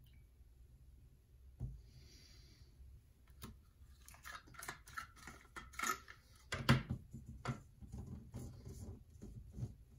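Handling of a plastic trigger spray bottle, the Homedics Ozone Clean: lifted off its base and its spray head unscrewed and set down, giving a run of irregular plastic clicks and knocks with one louder knock near the middle. A glass beaker is set down on the table with a thump early on.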